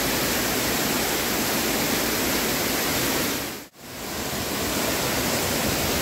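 Waterfall cascading over rock slabs, a steady loud rush of water. About two-thirds of the way through it cuts out suddenly for a moment, then comes back over about a second.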